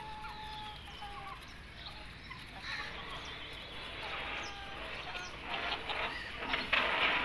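Young chickens calling while they peck feed: thin drawn-out peeps and short clucks, with a run of louder scratchy sounds over the last second or so.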